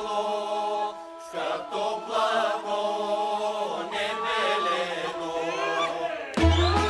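Bulgarian folk choir singing long held notes in chords, dropping out briefly about a second in, then resuming with sliding ornaments. Near the end the full folk band comes in loudly with a deep bass.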